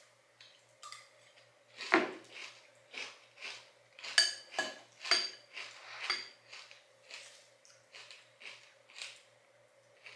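A spoon clinking against a glass bowl of cereal and milk, about two light clinks a second, a few of them around the middle ringing briefly.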